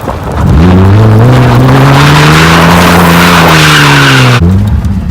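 BMW E36 drift car's engine revving hard and holding high revs while the tyres skid. The throttle cuts off sharply near the end and the engine picks up again at a lower pitch.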